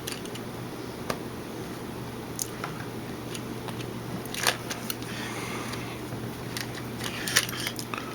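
Small plastic clicks and taps from a digital camera's casing and internal parts being handled and pried as its back housing is worked off, scattered and irregular and bunched toward the end, over a steady low hum.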